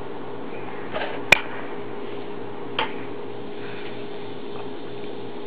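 Steady low electrical hum of room noise, with a few soft clicks and one sharp tick a little over a second in.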